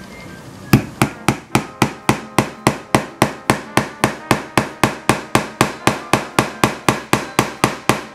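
Small hammer tapping 3/4-inch brad nails into a wooden board, starting about a second in: a fast, even run of light taps at about four a second, each with a short metallic ring.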